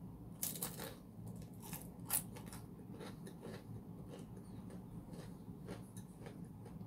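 Biting and chewing crunchy Hong Kong egg waffle (egglets): a run of crisp crunches, loudest in the first couple of seconds, then softer crackling chews.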